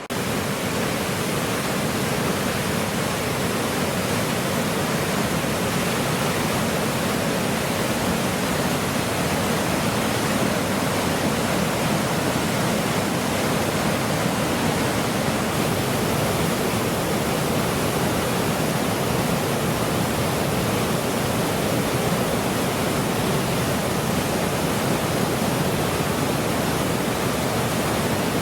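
Waterfall: falling water rushing in a steady, even wash of noise that comes in suddenly at the start.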